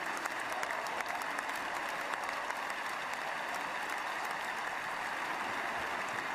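Large stadium crowd applauding steadily in a standing ovation, with sharper individual claps standing out close by.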